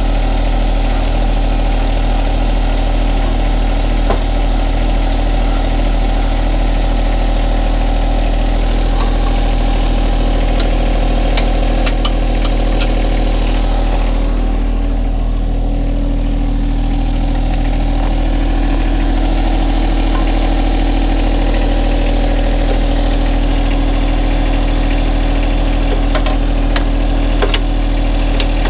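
John Deere 1025R compact tractor's three-cylinder diesel engine running steadily, its note shifting about halfway through, with a few light clicks and knocks of metal parts.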